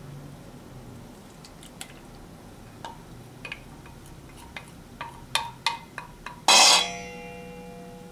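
Wooden spoon clinking against a glass measuring cup as melted butter is scraped out into a stainless steel mixing bowl: a few light clinks, then a quicker run of them. About six and a half seconds in comes one loud knock against the stainless steel bowl, which rings on with a lingering metallic tone.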